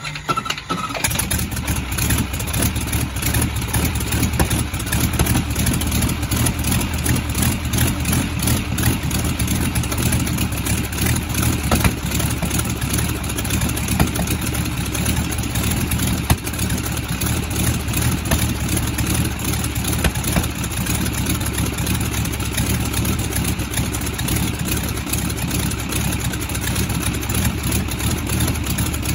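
Jacobs R-755 seven-cylinder radial aircraft engine catching about a second in, then running steadily and loud at idle.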